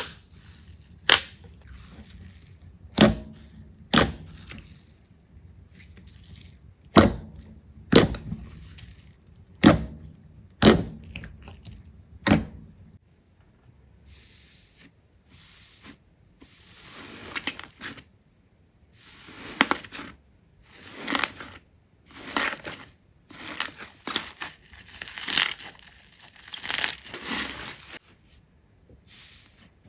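Slime being worked by hand: a string of separate sharp clicks and pops, then from about halfway longer squishes, each with a crackle in it.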